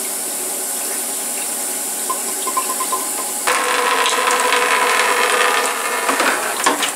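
Machining coolant pouring and splashing from the unscrewed filter housing into a bucket, getting louder about halfway in, over a steady background hum.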